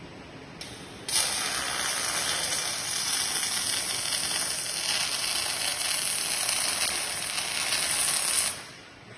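Welding arc from an RGL10-1440-W welding robot, striking about a second in, burning steadily for about seven seconds and cutting off sharply as the weld ends.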